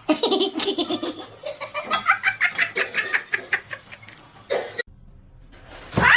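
Human laughter in quick repeated bursts for about five seconds, breaking off near the end. It is followed by a loud sliding tone that rises and then falls.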